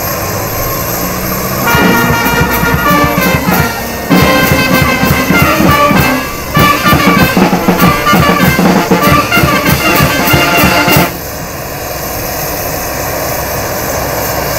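Brass band music with drum beats, starting about two seconds in and stopping about eleven seconds in, with two brief dips; a steady background noise fills the rest.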